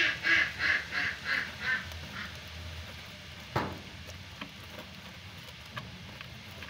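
A duck quacking in a run of about seven quacks, each softer than the last, stopping about two seconds in. A single sharp knock follows a second and a half later.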